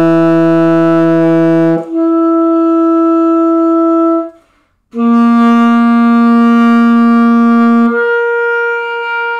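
Alto saxophone playing sustained long tones of an embouchure-building 'chop builder' exercise. Each note is slurred up an octave. The first leaps up about two seconds in and stops a little after four seconds. After a short breath, a lower note starts and leaps up an octave about three seconds later, held to the end.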